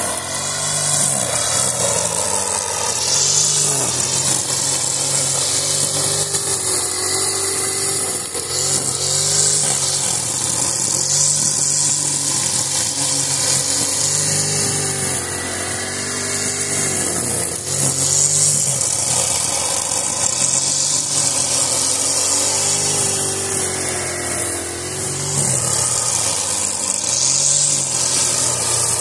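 Honda four-stroke brushcutter running under load with a trimmer-line head cutting grass. The engine note swells and dips about every two seconds as the head sweeps through the grass, over a steady high hiss of line slashing stems.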